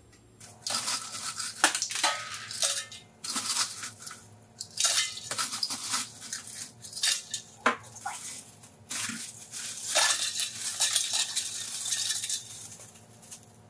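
Ice cubes rattling and clinking as they are scooped from a plastic bag with a cup and poured into a stainless steel stockpot of sweet tea to chill it, with the plastic bag crinkling. The sound comes in uneven bursts with short pauses between them.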